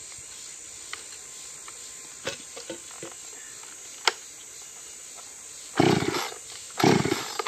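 Chainsaw being pull-started: two rasping yanks of the starter cord about a second apart near the end, after a few light knocks. A steady high insect hiss runs underneath.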